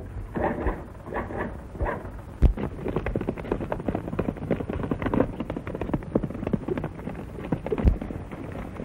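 A horse galloping: a fast, even run of hoofbeats that starts about two and a half seconds in with a sharp thump.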